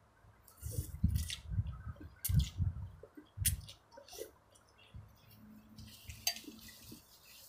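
A person slurping noodles from a bowl of chicken noodle soup and chewing: several wet, hissing slurps in the first three or four seconds, then quieter chewing and mouth sounds.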